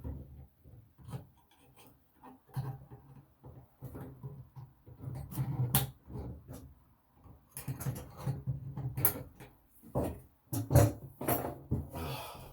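Irregular scraping, rubbing and knocking of hands and tools working an old bathroom faucet loose from the sink, busiest in the second half.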